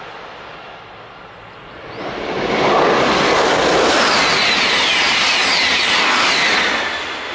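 Double-deck TGV Duplex high-speed train passing at speed: the rush of wheels on rail and air rises about two seconds in, holds loud and steady for about four seconds, then falls away near the end. At the start the sound of the TGV Réseau that has just passed is still fading.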